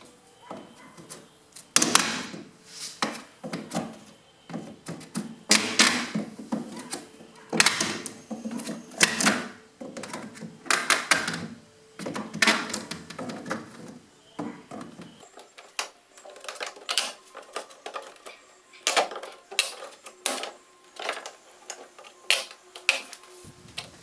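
A metal pry bar and screwdriver prying nails out of old PVC garage door weather stripping: an irregular run of sharp clicks, knocks and creaks, heavier in the first half and lighter after.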